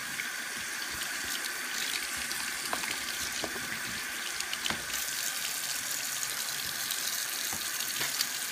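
Water running steadily from a sink tap into the basin, with a few small clicks.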